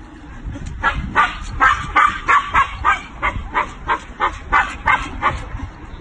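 Dog yipping in a quick, even run of short, high barks, about three a second, starting about a second in and stopping shortly before the end.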